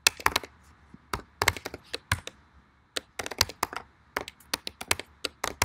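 Typing on a computer keyboard: quick, irregular keystroke clicks in bursts, with a short pause about halfway through.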